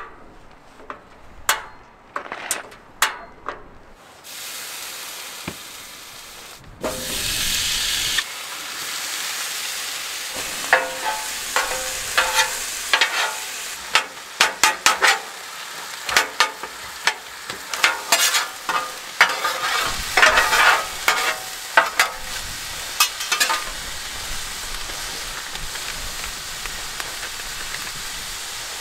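Master Chef propane flat-top griddle: a few sharp clicks of the igniter, then the burner hissing from about four seconds in. Ground beef starts sizzling loudly on the hot steel top about seven seconds in, with a metal spatula scraping and chopping against the griddle many times, easing to a steady sizzle near the end.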